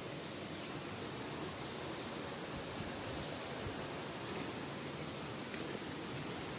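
Waterfall: a steady rush of falling water, with a high hiss sitting above it.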